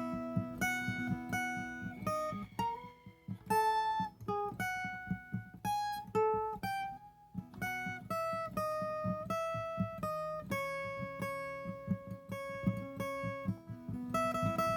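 Viola caipira (Brazilian ten-string guitar) played solo: a picked melody of single ringing notes over a quick, steady plucked accompaniment on the lower strings.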